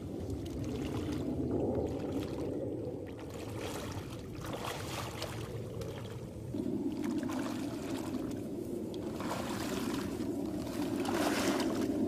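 Boots wading through shallow water, sloshing and splashing with the steps, over a steady low rushing.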